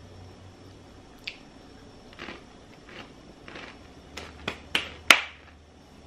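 Pringles potato crisp crunching as it is chewed: a run of crackling crunches, soft at first, then four sharper, louder ones in quick succession near the end, the last the loudest.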